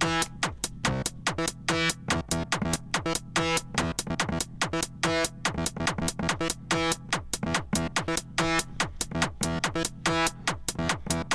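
Techno loop from a drum machine and synthesizer: fast, even closed hi-hat ticks at about eight a second under a short, repeating sequenced synth riff.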